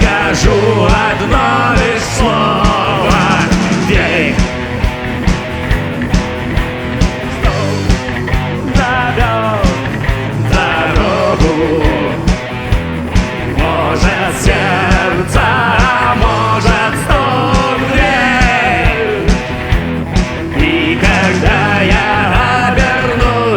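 Rock song playing: a steady drum beat about twice a second, with guitars and a male voice singing.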